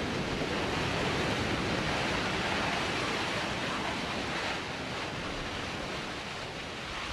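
New Shepard booster's BE-3 hydrogen-oxygen rocket engine firing during the powered landing: a steady, dense rushing noise that eases slightly about four and a half seconds in.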